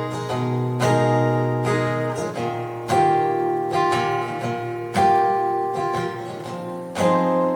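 Live guitar, most likely acoustic, strumming sustained chords without vocals, one struck about every two seconds and left to ring and fade, in a pause between choruses of the song.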